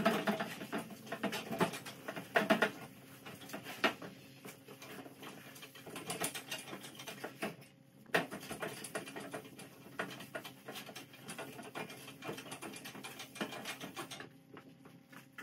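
A dry cloth rag rubbing over a bare steel car door skin, an irregular run of scuffing rubs and light knocks. This is the panel being dried after its rust-remover acid was neutralised with water.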